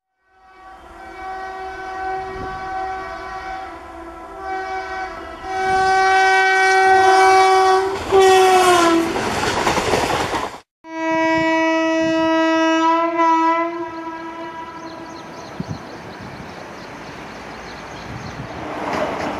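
Electric locomotive's horn sounding in long blasts as the passenger train approaches, the pitch dropping as the locomotive passes, then the rush and wheel clatter of the passing coaches. After a brief cut, a second long horn blast, then the steady rumble of the train running.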